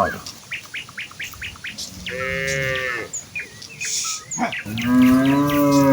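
Village cattle mooing as a herd walks: a moo ends just at the start, a shorter moo comes about two seconds in, and a long, loud moo runs through the last second. Birds chirp quick rising notes in between.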